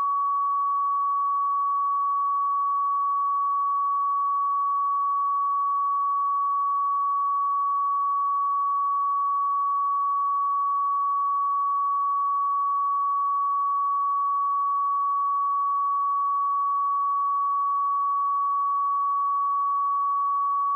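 A pure 1128 Hz sine-wave test tone, held at one steady pitch and level throughout, used to check speakers or headphones.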